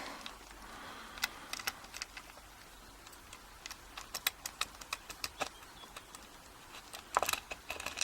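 Scattered small clicks and taps of a screwdriver working at a tight screw in a padlock, the screw held fast as if Loctited. A quick cluster of clicks comes about seven seconds in.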